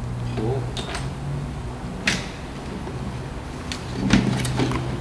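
Latches and hinged metal access panel on a jet's nose being worked open by hand: a few sharp clicks and knocks, the loudest near the end as the panel comes free. A steady low hum sits underneath.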